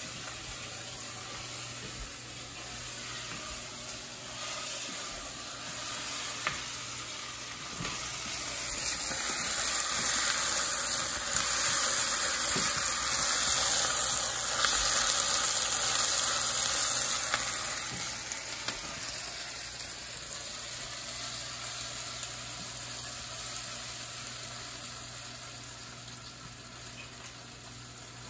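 Onions frying in a hot pan, a steady sizzle that swells louder about a third of the way in, holds for several seconds, then eases back down.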